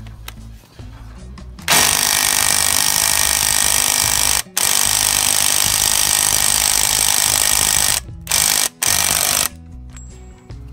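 Half-inch impact wrench hammering the nut of a new outboard motor flywheel tight: a long run starting about two seconds in, a short pause, a second long run, then two short bursts, stopping about nine and a half seconds in.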